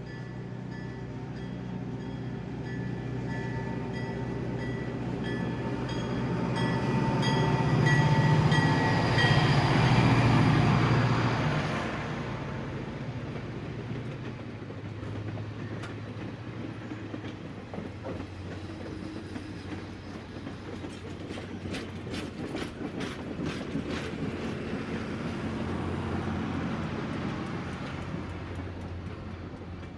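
N scale model trains running on the layout. Their rumble swells to its loudest about 8 to 11 seconds in. A ringing tone repeats evenly over the first nine seconds or so, and a quick run of sharp clicks comes about 22 to 25 seconds in.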